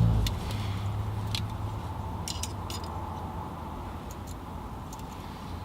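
A handful of light metallic clicks and clinks, spread unevenly over several seconds, from a small FME coax connector being handled and its jam nut tightened by hand. A low vehicle rumble cuts off right at the start.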